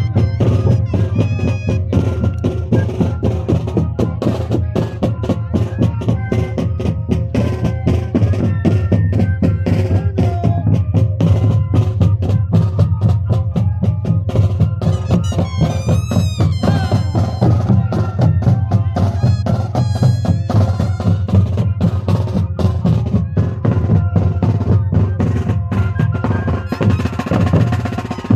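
Moseñada band playing: a group of large Andean duct flutes (mohoceños) sounding held notes together over a steady, dense drum beat.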